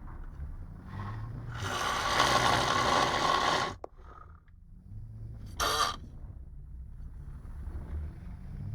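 A drunk man snoring heavily in his sleep. One long, loud snore of about two seconds cuts off abruptly, a shorter burst follows about two seconds later, and low throaty rumbles run between them.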